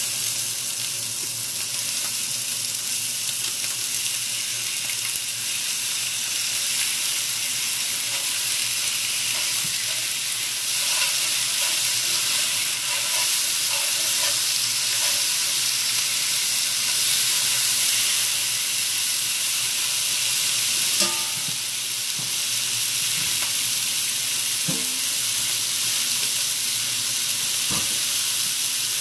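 Cold chicken pieces sizzling in a smoking-hot cast iron frying pan, a loud, steady hiss of frying. A few short knocks sound in the second half.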